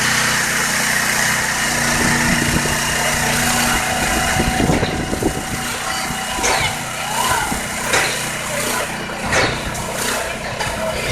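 An engine running steadily, with several sharp knocks from about six seconds in.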